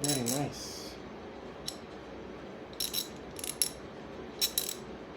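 Hand ratchet from a DEWALT mechanics socket set clicking in several short bursts as it is worked back and forth, a crisp metallic crunch of the pawl. A brief vocal hum at the very start.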